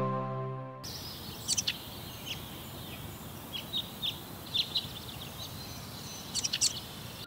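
Birds chirping in short, scattered bursts of calls over a steady outdoor background hiss, as in a park ambience. A light chiming music track fades out in the first second.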